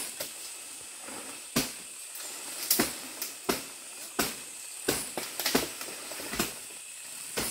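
Palm fronds being cut and snapped: about a dozen sharp, irregular chops and cracks, roughly one or two a second, over a steady high hiss.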